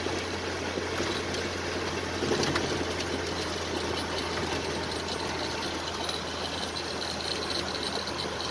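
1941 Dodge WC truck cruising in overdrive, heard from inside the cab: a steady low engine drone under road and tyre noise.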